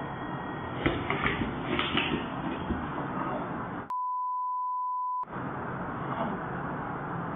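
A single steady censor bleep of about a second and a half, with all other sound cut out while it plays, a little under four seconds in. Around it is a steady hissy background, with a few sharp sounds about a second in.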